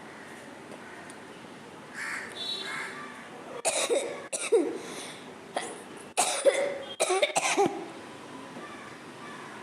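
A person coughing deliberately: a run of about six sharp coughs in the middle stretch, with a softer throat sound a little before them.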